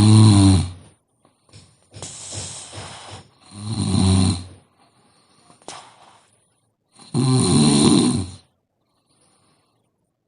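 A sleeping woman snoring: three loud snores a few seconds apart, with a breathy exhale between the first two.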